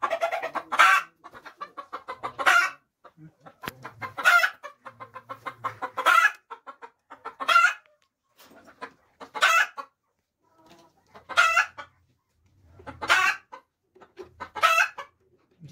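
A hen cackling: runs of quick short clucks, each ending in a loud drawn-out squawk, repeated about every one and a half to two seconds.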